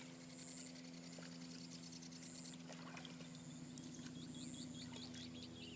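Faint steady low hum, likely a boat's motor running at idle, over faint water noise, with a run of rapid faint high ticks starting a little past halfway.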